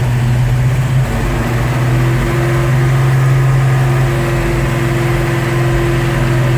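A Dodge Challenger's engine running steadily at idle as it is being tuned: a loud, even low hum, with a higher steady tone joining about two seconds in.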